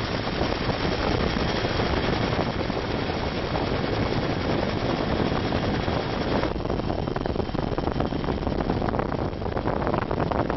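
Helicopter rotor and engine noise heard aboard, a steady, loud, rapid chopping; the higher hiss drops away about six and a half seconds in.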